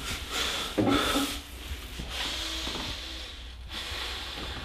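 A man breathing heavily in a few rough breaths, with a short voiced grunt about a second in, over a steady hiss and low hum.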